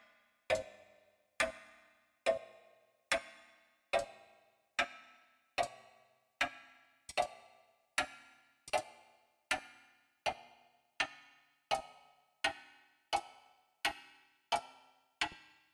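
Grandfather clock ticking sound effect: single ringing ticks a little under a second apart, coming gradually faster.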